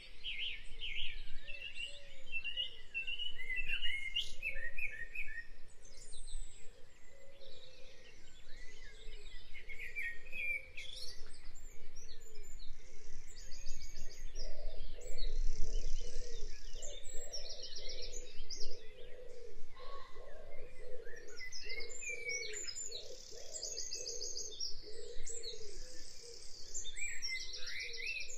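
A chorus of birds chirping and singing, with short whistles and fast repeated high trills coming and going, over a lower wavering call that runs through most of it.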